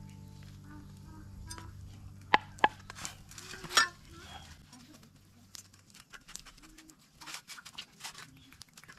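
Hands scooping spice paste from a clay mortar and rubbing it into a raw chicken in a metal bowl: soft wet handling with irregular sharp clicks and taps, the loudest about midway. Background music fades out over the first few seconds.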